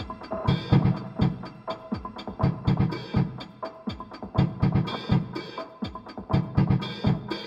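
Electronic music: a drum machine beat of repeated kick and snare hits over a held synth chord.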